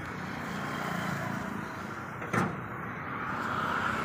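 Swaraj 855 FE tractor's three-cylinder diesel engine running steadily, just after an overhaul with new cylinder sleeves and piston rings. A single sharp clack comes about halfway through, and the engine note swells slightly near the end.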